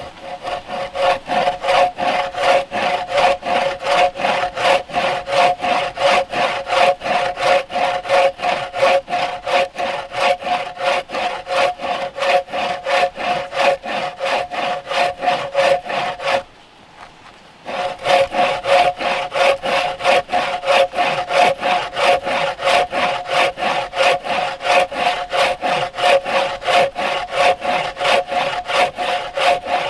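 Wooden-framed bow saw cutting across a log by hand, a steady back-and-forth rhythm of about three strokes a second with a ringing note from the blade. The sawing stops for about a second a little past halfway, then picks up again at the same pace.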